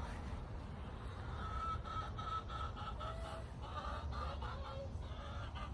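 Backyard hens clucking softly in a series of short repeated notes, with a few lower calls, over a steady low rumble.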